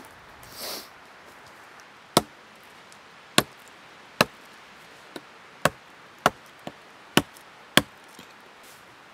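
Small hatchet chopping into a branch lying on the ground: about nine sharp, separate strikes at uneven intervals, a couple of them faint, beginning about two seconds in. A short rustle comes just before the chopping.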